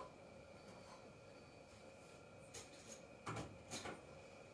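Quiet room with a faint steady hum. About two and a half to four seconds in come a few soft, short rustles and taps.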